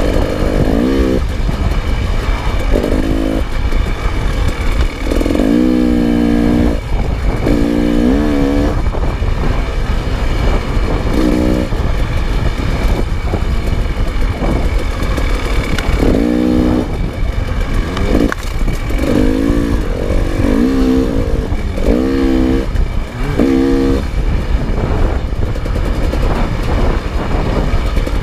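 Dirt bike engine revving up in short repeated bursts as the throttle is worked along a trail, over a steady low rumble.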